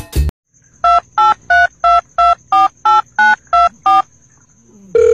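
Telephone keypad dialing tones: ten short two-note beeps at about three a second, the pitch pair changing from key to key. Near the end a long steady tone begins.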